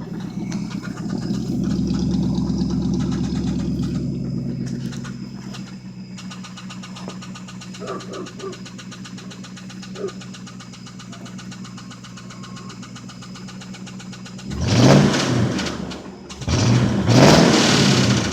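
1995 Lincoln Town Car's 4.6L modular V8 with glasspack mufflers, running with a rod knock on cylinder 3 from worn bearings at 326k miles. It swells up over the first few seconds, settles to a steady idle, then is revved sharply twice near the end, pitch climbing and falling each time.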